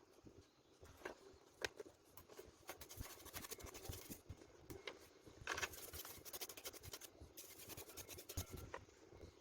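Quiet, irregular scraping and scratching on a 3D-printed PLA part as it is worked by hand, with scattered clicks and several short bursts of scratching.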